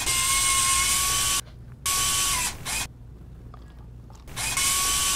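Robot-arm servo whirring, a motor sound effect in three bursts, each a steady whine over a hiss: the first about a second and a half long, a shorter one just after, and a third near the end.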